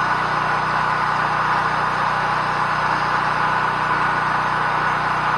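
Engine-driven welder-generator running steadily at a constant speed, a low even hum under a steady hiss.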